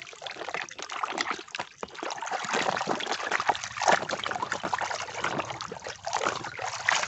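Muddy water in a basin splashing and sloshing as a plastic toy road roller is pushed about through it by hand, with many quick uneven splashes.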